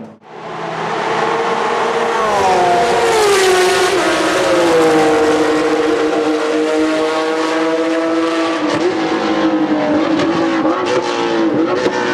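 GT race car engine running hard at high revs. Its pitch falls over about two seconds, then holds nearly steady.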